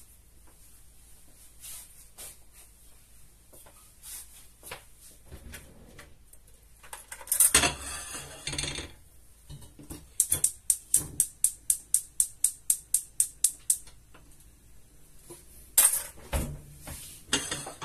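Cookware being handled: scattered clinks and knocks, a longer clattering scrape about seven seconds in, then a quick even run of about twenty sharp clicks at some five a second, and a last clatter with a low thump near the end.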